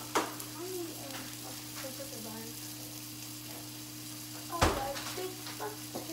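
Two sharp clunks as things are handled in an open refrigerator, the second louder with a low thump, plus a few lighter taps. A steady hiss of food frying in a pan and a steady hum run underneath.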